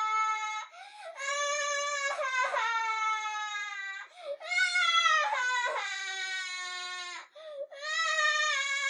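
A baby crying in long, drawn-out wails, each sagging slightly in pitch, broken by brief sobbing breaths.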